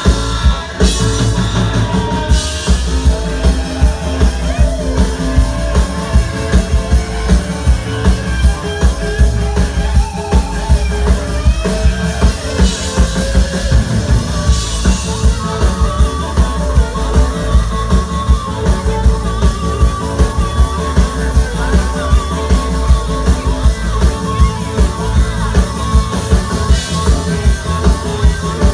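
Live band playing amplified music with a steady beat.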